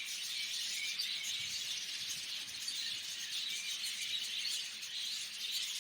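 Many budgerigars chirping and chattering at once, a continuous dense twittering.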